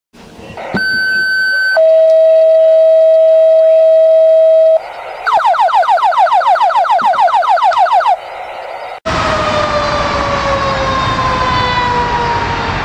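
Electronic alert tones: a short high steady tone, then a longer lower steady tone in the pattern of a two-tone fire dispatch page, then a rapid repeating rising warble for about three seconds. After a sudden cut about nine seconds in, a fire engine's mechanical Federal Q siren slowly winds down in pitch over traffic noise.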